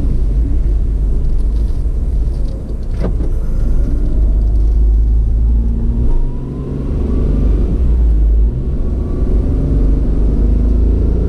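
Car driving, with a steady low rumble of engine and road noise; the engine pitch rises a little between about six and eight seconds in. A single short knock about three seconds in.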